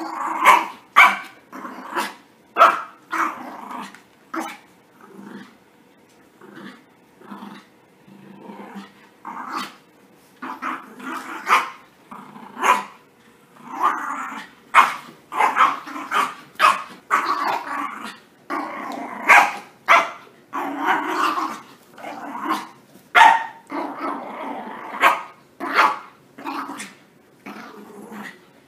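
Puppies (Yorkshire terriers and a papillon) growling and yapping as they play-fight and tug over toys: repeated short sharp barks with rumbling play growls between them.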